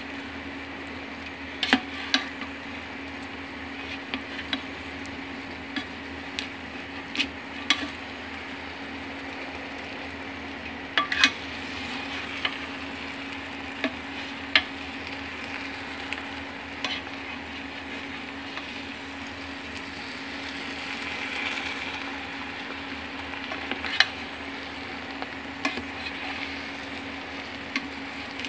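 Pancit canton stir-frying in a pan: a steady sizzle with a cooking utensil clinking and scraping against the pan at irregular moments, about every second or two.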